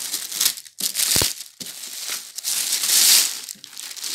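Clear plastic wrapping crinkling and rustling as a wireless microphone receiver in its bag is pulled out of a foam-lined case, with one dull knock about a second in.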